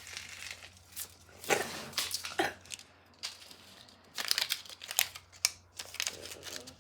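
Crinkly toy packaging being handled and pulled open, rustling and crackling in irregular bursts.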